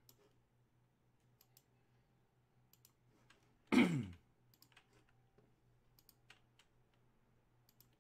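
Scattered faint computer mouse clicks and key taps, with one short vocal sound falling in pitch about four seconds in.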